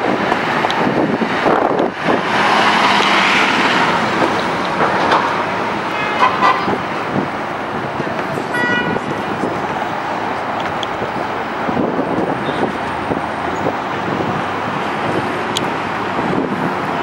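Busy city street traffic: engines and tyres running steadily, with short car horn toots about six and nine seconds in.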